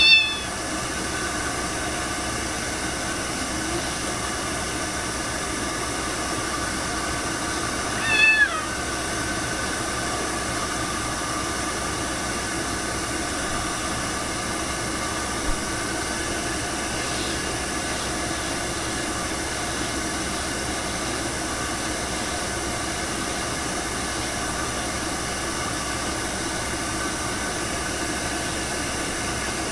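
Ragdoll cat meowing twice: a short call at the start and one about eight seconds in that falls in pitch, over a steady hiss.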